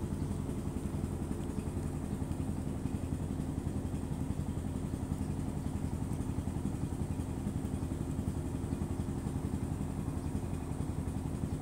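A small engine idling steadily, with an even, fast pulse.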